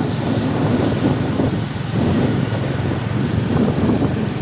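Vehicle engine running steadily, with wind noise on the microphone.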